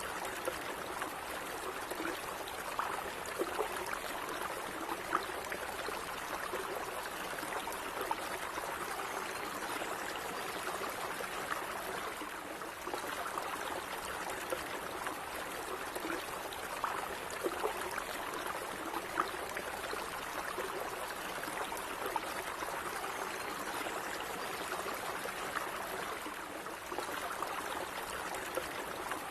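Running water of a small stream flowing and trickling steadily, with small splashes and gurgles.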